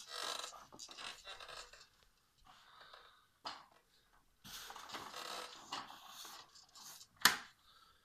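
A baby panting and breathing hard in two stretches of a second or two, with sharp knocks of hands on the plastic toys of an activity jumper, the loudest near the end.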